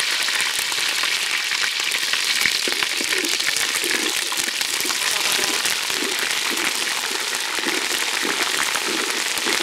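Rice grains sizzling as they fry in hot oil in an aluminium pot: a steady hiss with fine crackling throughout, while a metal spatula stirs them.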